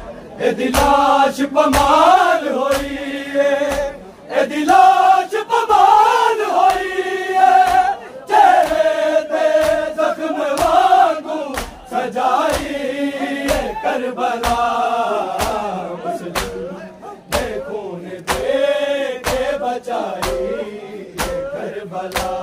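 Men's voices chanting a noha, a Shia mourning lament, with a steady rhythm of hands slapping bare chests (matam) keeping time.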